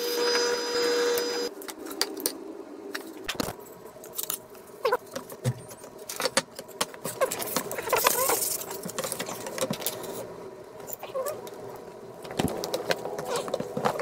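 Benchtop drill press motor running with a steady hum, then switching off about a second and a half in. Scattered clicks, knocks and clatter of wood and tools being handled on the workbench follow, with short high squeaks here and there.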